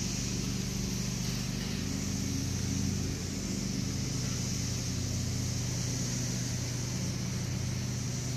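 A steady low mechanical hum, like a running engine, with a constant high-pitched hiss above it.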